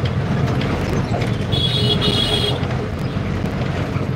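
Steady ride rumble of a moving bus, heard from inside the passenger cabin. In the middle a short high tone sounds twice in quick succession.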